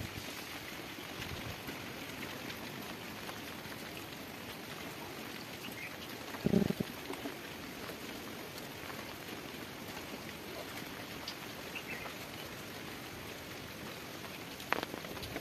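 Steady light rain falling on wet ground and puddles, with a short louder low sound about six and a half seconds in and a sharp click near the end.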